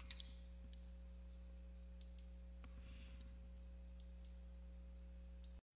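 Near silence: the faint room tone of a voice recording, with a steady low electrical hum and a few faint clicks, cutting to dead silence near the end.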